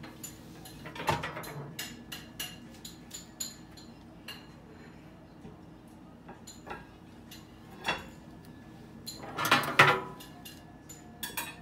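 Clinks and knocks as a glass microwave turntable plate and its plastic roller ring are lifted out of the microwave. The clatter comes in scattered short clicks, loudest near the end as the roller ring comes out.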